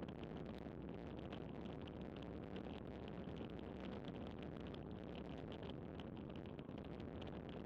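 Steady wind rush and tyre noise from a road bicycle coasting downhill at about 27 mph on coarse, worn asphalt, with a fine rapid crackle from the tyres on the rough surface.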